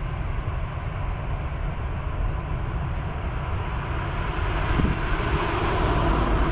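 Airbus A220-300's twin Pratt & Whitney geared turbofans running at idle as a steady rumble and hiss, growing a little louder over the last second or two.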